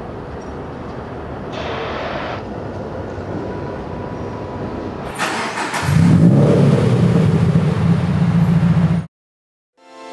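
Toyota GT86's 2.0-litre flat-four boxer engine starting about five seconds in: a short burst of cranking, then it catches and runs loudly with a low, steady rumble, cut off abruptly about a second before the end. Before the start there is only a steady background hum.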